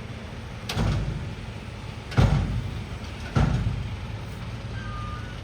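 Three heavy thuds about a second apart, each with a short ringing tail, the second the loudest, over the steady low hum of a running truck engine.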